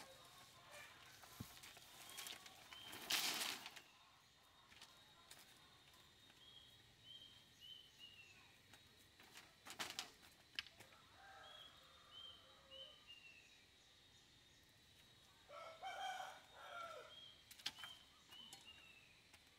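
Faint bird calls: short falling chirps repeated in groups of three or four, with a rustling burst about three seconds in and a longer, lower call around sixteen seconds in.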